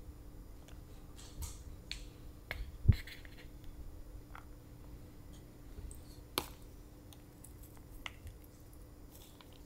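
Close-miked eating sounds: scattered wet mouth clicks and smacks while chewing, with a dull thump about three seconds in and a single sharp click a few seconds later.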